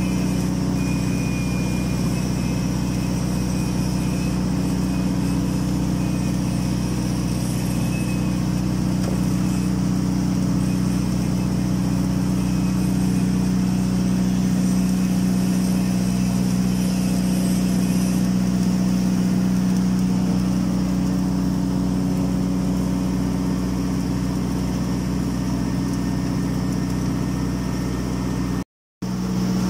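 Automatic girth welding machine and its equipment running a weld pass along a tank shell seam: a steady mechanical hum with several low held tones. It cuts out briefly near the end.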